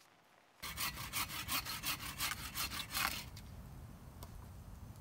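Hand saw cutting through wood in quick, even back-and-forth strokes, about five a second, starting about half a second in and stopping about three seconds in; a low steady background follows.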